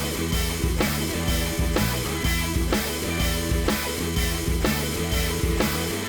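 Background rock music with drums, bass and guitar on a steady beat.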